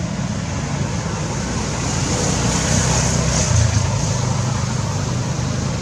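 A motor vehicle engine running steadily, with a high hiss that swells for a couple of seconds in the middle.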